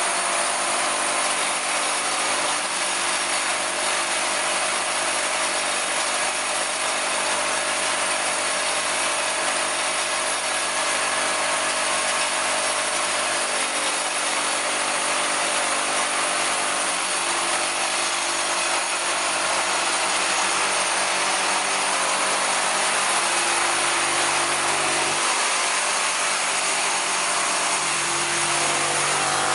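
ZYCL 230 screw-and-plastic-anchor assembly machine running, its vibratory bowl feeders full of long M10 x 230 mm screws and anchors rattling. A steady, dense mechanical noise with a constant hum beneath.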